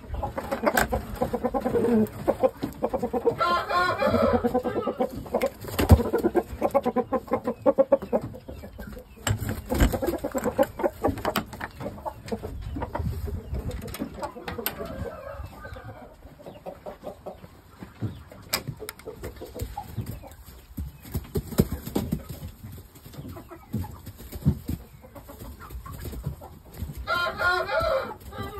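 Shamo gamefowl clucking, with two short crows, one about four seconds in and one near the end, over scattered knocks and rustles.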